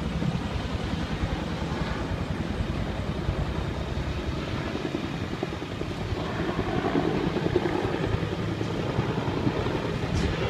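Helicopter flying overhead, its rotor chop running steadily throughout and swelling somewhat about six seconds in.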